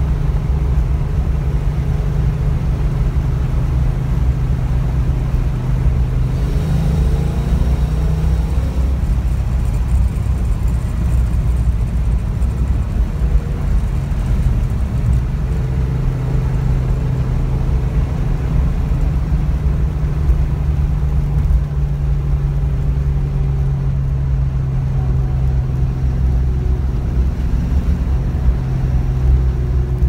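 Fox-body Ford Mustang's 5.0 V8 running under way, heard from inside the cabin as a steady low engine drone over road noise. The engine note climbs in pitch briefly about six seconds in.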